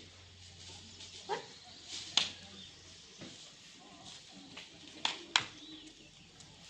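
A few sharp knocks, with a close pair of the loudest ones about five seconds in, over faint background sound.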